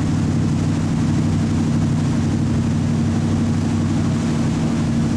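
A passenger ferry's engine running steadily at cruising speed, heard on board as a low, even drone made of several steady tones, over a haze of water and air noise.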